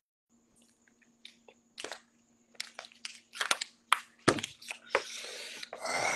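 A plastic water bottle crackling and crunching as it is gripped and handled after a drink: a run of sharp cracks and clicks, then a denser rustling stretch near the end.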